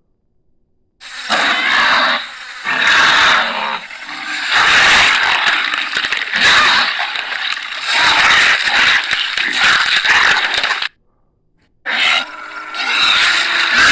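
Carnotaurus dinosaur sound effects: a string of rough roars and growls with short breaks between them, a pause of about a second near the eleventh second, then another roar.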